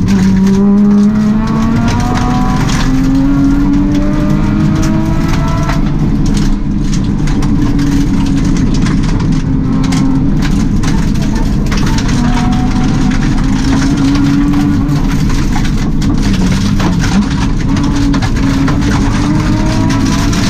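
Subaru rally car engine heard from inside the cabin under hard acceleration: its pitch climbs steadily for about six seconds, drops at a shift or lift, then rises and falls again through the rest. A constant rush of tyre and gravel noise runs underneath, with a few sharp knocks.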